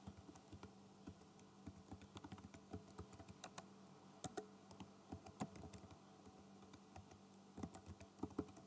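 Typing on a computer keyboard: quiet, irregular key clicks, thinning out briefly a little past the middle before picking up again.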